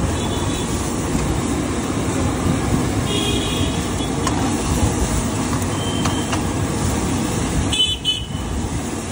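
Steady roaring rumble of a high-flame street-food burner under a wok, mixed with traffic noise, broken by four brief vehicle-horn toots, the last about eight seconds in.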